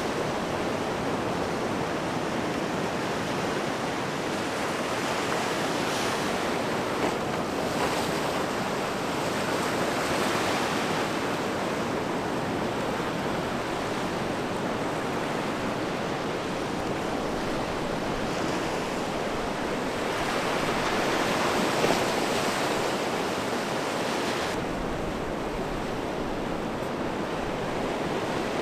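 Ocean surf washing up a sand beach: a steady wash of breaking waves that swells twice, about a third of the way in and again about three quarters through. Near the end it turns duller, with a low wind rumble on the microphone.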